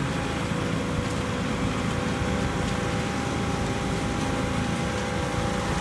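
Steady drone of the diesel engines of a concrete pump truck and mixer trucks running at a concrete pour, with a faint steady whine over it.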